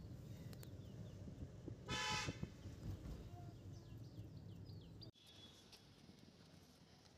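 Low road rumble inside a moving car, with one short car horn honk about two seconds in. The rumble cuts off suddenly near the end, leaving quieter outdoor background noise.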